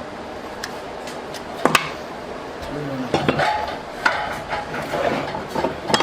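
Metal parts and tools clinking and knocking against each other in a few sharp, separate strikes over a steady workshop background, the loudest strike a little under two seconds in.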